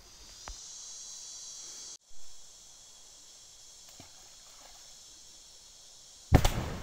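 Steady high insect hiss with a faint splash about four seconds in; near the end a sudden loud, short blast that dies away quickly, a dynamite charge going off under the river water.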